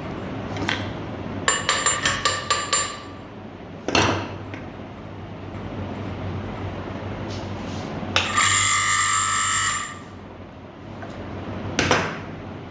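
Metal tools working on water pump parts. A quick run of about seven ringing metal taps comes in a second and a half, then a single knock. Past the middle a ringing metallic scrape lasts about a second and a half, and another knock comes near the end, all over a steady low hum.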